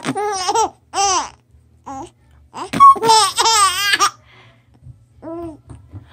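Baby boy giggling in short high-pitched bursts, with one longer warbling laugh about three seconds in.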